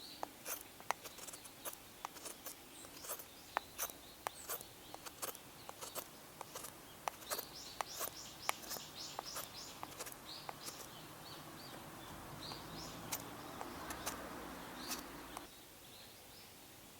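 Wood campfire crackling, with sharp irregular pops. Small birds chirp through the middle. A soft rushing noise swells for a few seconds near the end, then cuts off suddenly.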